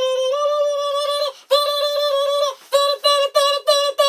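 A person imitating a sound with the voice: a high, very steady pitched tone held as two long notes, then broken into short repeated notes about three a second.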